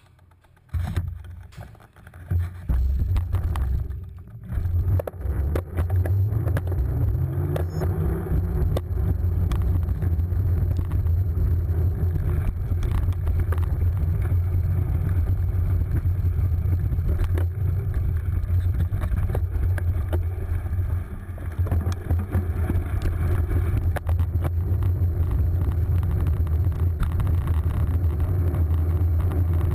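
Wind buffeting and low rumble on a handlebar-mounted camera as a cyclocross bike is ridden over dirt and gravel, with occasional knocks and rattles from bumps. It starts about a second in, once the rider is back on the bike.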